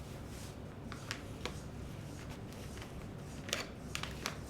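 A few light clicks and brief rustles of handling a pistol, holster and clothing at the waist, faint against a steady low hiss.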